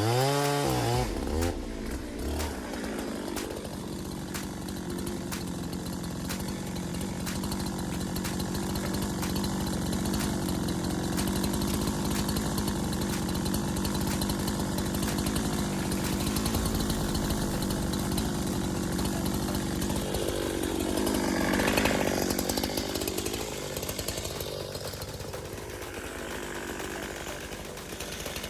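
Two-stroke chainsaw running steadily at high revs under load as it cuts marri timber. About three-quarters of the way through, its pitch drops and then climbs back.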